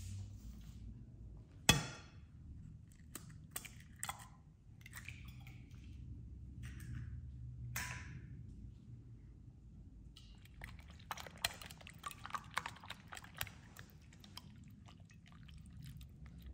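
Eggs knocked against a glass bowl and broken open: a few sharp cracks, the first the loudest. About ten seconds in, a fork starts whisking the eggs in the glass bowl, a quick run of clinks against the glass.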